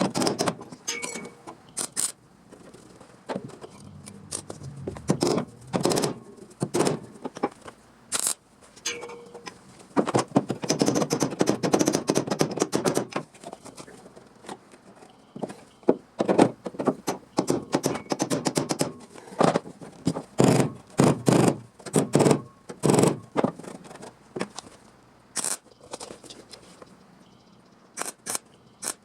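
Irregular knocks and clacks from hand work on sheet steel, some ringing briefly, with a longer stretch of scraping about ten seconds in.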